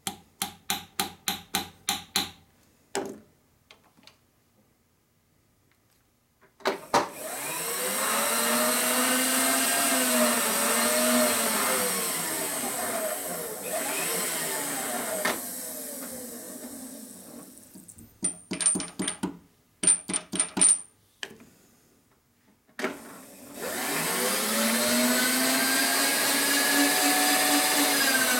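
About ten quick taps of a hammer on a part clamped in a milling-machine vise, then the mill table's feed motor running the part past a dial indicator, rising in pitch as it speeds up and falling as it slows. A second burst of taps comes between two runs: the part is being tapped into line and swept to check how far out of square it sits.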